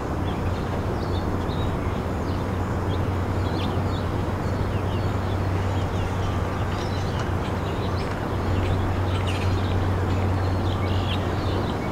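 Outdoor ambience: many short, scattered bird chirps over a constant rushing noise and a steady low hum.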